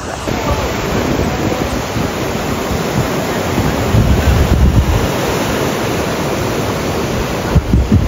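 Ocean surf washing steadily, with wind buffeting the microphone in gusts that swell about halfway through and again near the end.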